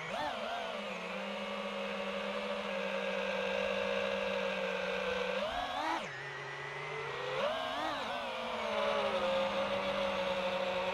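Brushless motors and propellers of an iFlight Titan DC5 FPV quadcopter whining in flight. The pitch holds steady, jumps up and then drops sharply about halfway through, and climbs back over the next two seconds as the throttle changes.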